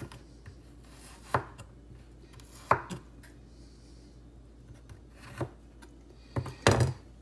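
Chef's knife slicing fresh ginger on a plastic cutting board: about half a dozen separate knocks of the blade on the board at irregular intervals, with a quick, louder pair near the end.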